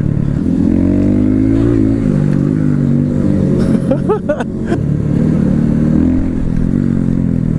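600cc sport motorcycle engine running at low speed, its revs rising briefly about a second in and dropping back before settling steady.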